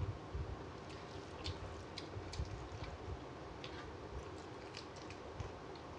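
Eating rice by hand from a bell-metal plate (kahi): irregular small clicks and taps as fingers mix the food against the metal, along with mouth sounds of chewing.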